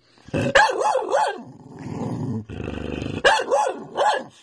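Dog "talking" back in a run of short yowls that rise and fall in pitch, then a low growly grumble, then another run of rising and falling yowls.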